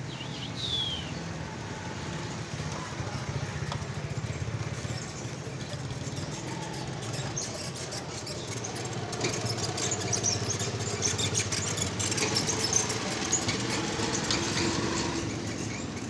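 A steady low engine hum runs under a few short, high chirps from small caged birds: a falling whistle about a second in, then scattered chirps, busier in the second half.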